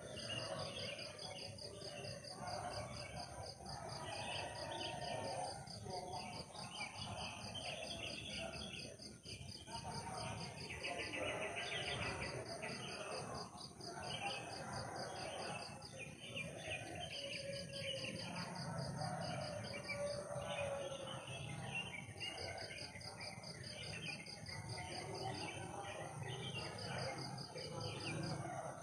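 Forest insect chorus: a cricket-like pulsing trill that comes and goes in long stretches over a steady high insect whine, with many other chirping calls beneath.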